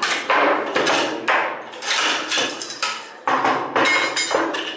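AK-74 assault rifle being field-stripped by hand: a quick run of sharp metallic clacks and clicks as steel parts are pulled free and set down on the table.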